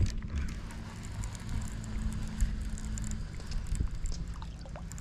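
Wind rumbling on the microphone, with a faint steady hum under it that fades out about three seconds in.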